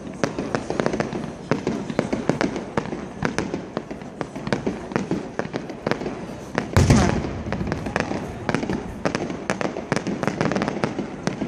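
Fireworks display: a dense run of crackling bursts, with one much louder boom about seven seconds in.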